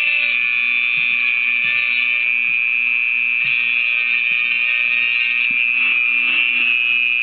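Dremel rotary tool with a 1/8-inch drill bit running at high speed with a steady high whine, drilling a hole.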